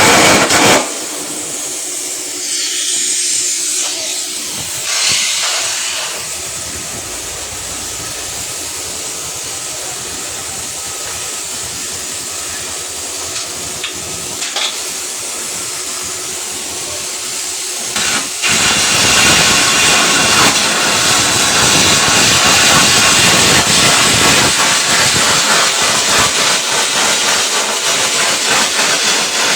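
Electric arc welding: the arc sizzling and crackling with a steady, frying hiss. It runs quieter for most of the first part and becomes much louder for the last third.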